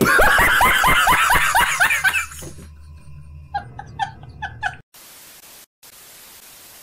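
A man laughing loudly in rapid, repeated bursts for about two seconds, fading out, then a few short high-pitched yelps, followed by a steady static hiss from about five seconds in.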